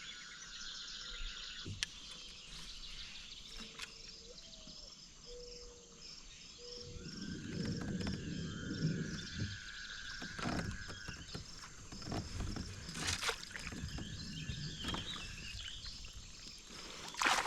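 Insects chirping in a steady, evenly pulsing rhythm, with occasional longer buzzing tones. From about seven seconds in, low rumbling noise and a few sharp knocks join them, as the kayak and fishing gear are handled.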